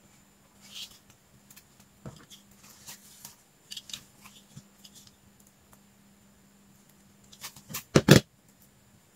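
Light handling noises of a small stick-and-film model wing frame on a cutting mat: scattered soft taps and rustles. Near the end comes a quick run of sharp clicks and knocks, the loudest part, as a plastic snap-off utility knife is handled and put down on the mat.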